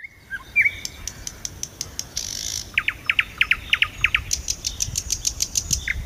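Nightingale singing a varied phrase. It opens with short whistles, then runs of fast, sharp high notes, a quick series of down-slurred notes about halfway through, and a rapid rattle of very high repeated notes toward the end.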